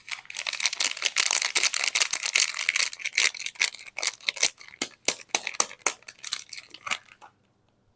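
Soap wrapper being torn open and crinkled by hand: a thick run of crackling for about three seconds, then separate crinkles and clicks that stop about seven seconds in.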